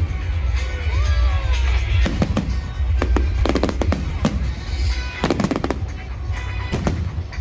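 A fireworks display: shells bursting with sharp bangs and crackles in quick clusters every second or so, over a deep rumble, with music playing along.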